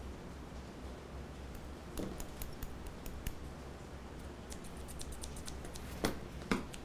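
Scissors snipping hair in scattered sharp clicks, the two loudest snips near the end, over a steady low room hum.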